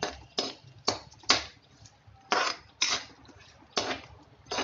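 Metal spatula scraping against a kadai while stirring cashews, almonds and raisins frying in oil. About eight short strokes, irregularly spaced with brief pauses.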